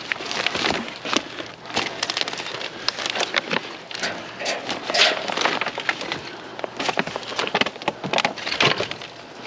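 Rummaging through trash in a dumpster: plastic plant pots, buckets and bags clattering, knocking and rustling as they are handled and shifted, in a steady stream of irregular knocks and clicks.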